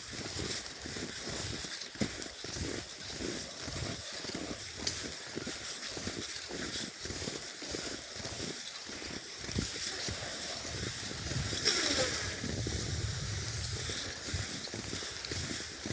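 Skis squeaking and crunching on cold snow, stride after stride in a regular rhythm, with a louder squeak about twelve seconds in.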